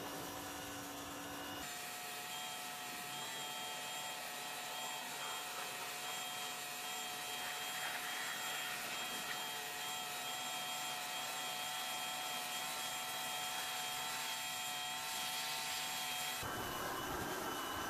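Pressure washer running, its water jet hissing against a car's engine bay as the degreaser is rinsed off, with a steady whine from the pump over the spray. The sound changes abruptly twice, at about two seconds in and near the end.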